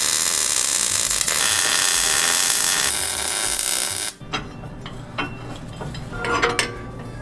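MIG welder arc crackling and hissing steadily while a steel leaf-spring perch is welded onto an axle tube, cutting off about four seconds in. Then a few light metal knocks and a ringing clank as the spring and perch are handled.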